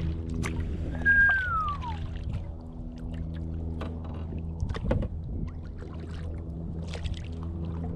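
Kayak paddling on open water: paddle splashes and drips with water lapping at the hull, over a steady low hum. A single descending whistle sounds about a second in.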